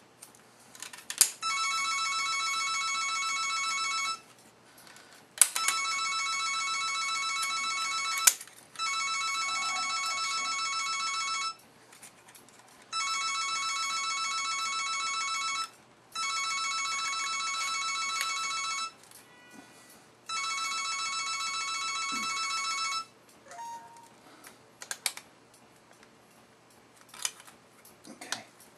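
A telephone rings six times in three pairs of long electronic rings, each ring a steady multi-tone warble, and then stops. A few light metallic clinks and clicks of hand tools fall between the rings and after them.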